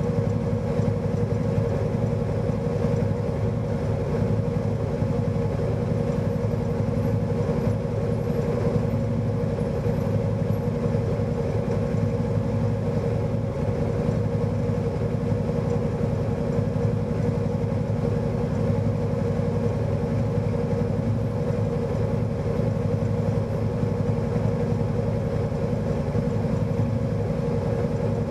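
Side-by-side UTV's engine idling steadily, heard from inside its cab while it stands still.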